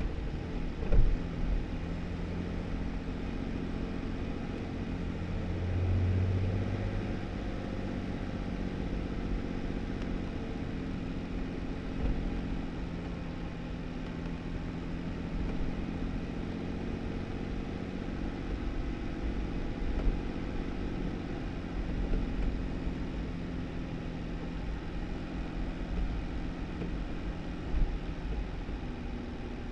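2018 Jeep Wrangler driving on a snow-covered dirt road: a steady engine hum with tyre noise. A few short knocks stand out, the loudest about a second in.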